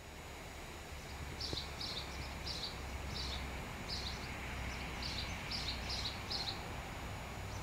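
A bird chirping repeatedly in short notes, about two a second, over a steady low rumble.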